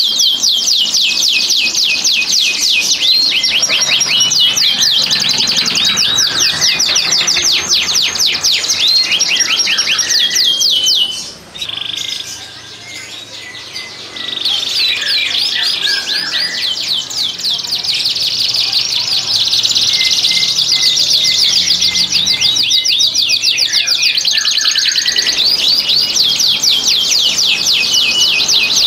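Domestic canaries singing the fast rolling trills of breeding-condition song, high rapid notes repeated in long runs. The song softens briefly about 11 seconds in and picks up again about three seconds later.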